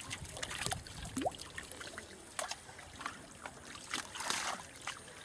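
Scattered small splashes and trickling water from a net full of small fish being handled in shallow water, the sounds coming irregularly.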